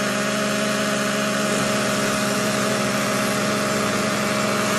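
Three small two-stroke nitro glow engines on a four-engine Traxxas RC truck idling together with a steady buzz, while the fourth has not yet started.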